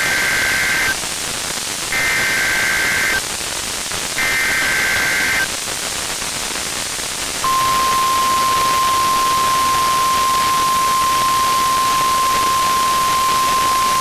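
NOAA Weather Radio Required Weekly Test: three buzzing bursts of SAME digital header data, about a second each, then after a short pause the steady 1050 Hz warning alarm tone starts about seven seconds in and holds. Constant radio static runs underneath.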